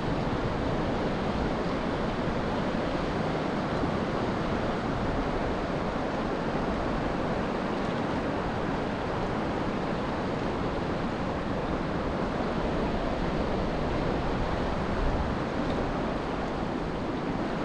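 Steady rush of flowing river water, an even noise with no breaks or distinct events.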